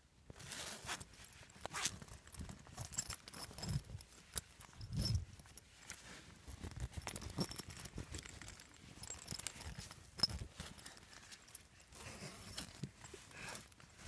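A tent's door zipper being worked open one-handed in fits and starts, with the tent fabric rustling as it is handled: irregular clicks, scrapes and rustles.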